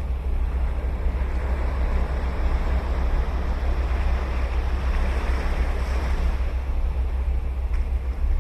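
Ocean surf breaking and washing ashore, with the wash swelling in the middle. Steady low wind rumble on the microphone runs underneath.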